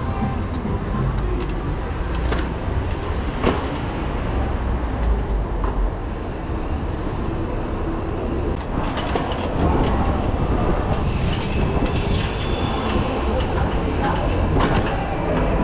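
Wind rumbling on the camera microphone while a mountain bike rolls over a rough street, with the bike rattling and scattered knocks from bumps.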